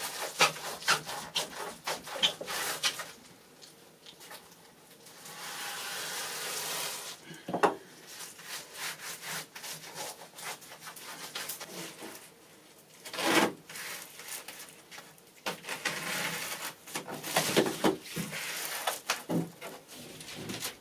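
Foil-faced bubble insulation being handled and pressed by hand onto a bus wall: irregular crinkling, rubbing and scraping with scattered taps, and a longer continuous rub about five seconds in.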